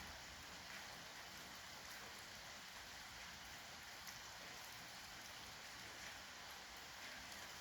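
Steady rain falling, an even hiss of rain with faint individual drops ticking now and then.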